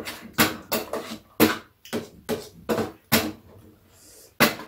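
Close-up eating sounds: a run of short, wet chewing and lip-smacking noises, about two a second, from people eating spicy braised chicken.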